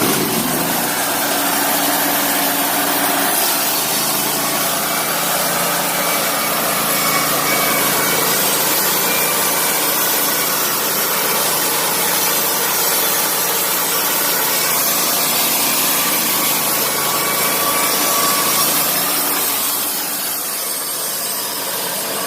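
Wood-Mizer LT28 portable bandsaw mill running, its band blade cutting through a log with a loud, steady hiss and a faint wavering whine; the sound eases off near the end.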